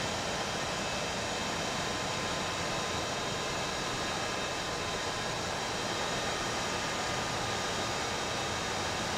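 Avro Vulcan's Bristol Siddeley Olympus turbojets running during a ground engine run: a steady rushing noise with faint high whine tones, unchanging throughout.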